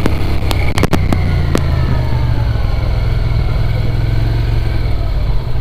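Heavy wind buffeting on the microphone over the 2005 Suzuki SV650S's V-twin engine running under way, with a few light clicks in the first second and a half.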